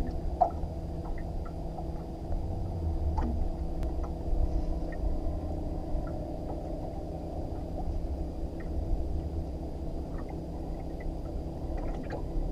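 Steady low hum of a boat motor under a low wind rumble, with a few faint scattered ticks.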